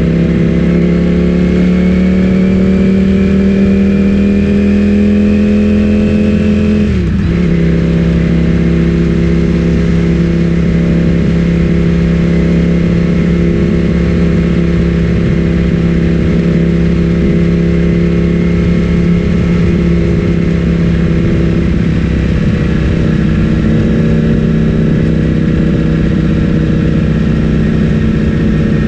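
Ducati Streetfighter V4S's 1103 cc V4 engine through an Akrapovic full-system exhaust, under way: the note rises steadily for about seven seconds, dips sharply for a gear change, then holds a steady cruising note.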